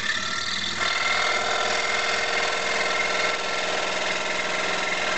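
Scroll saw running, its reciprocating blade cutting along a line in a wooden board. It makes a steady buzz that grows fuller about a second in.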